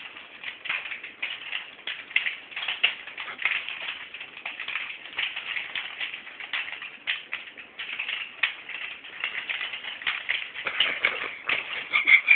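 Nunchucks swung fast through the air: a rapid, irregular run of swishes and clicks, several a second.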